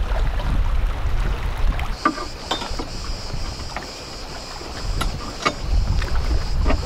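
Wind buffeting the microphone for about the first two seconds. Then scattered knocks and clicks of gear being handled in a small hatchback's open boot, over a steady high buzz.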